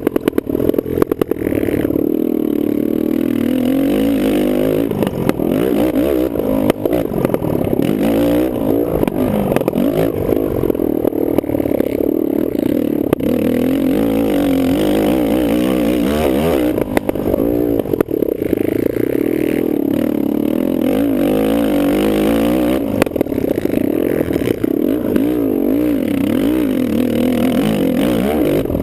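Kawasaki KFX450R quad's single-cylinder four-stroke engine revving up and down repeatedly under racing throttle, with scattered sharp knocks and clatter.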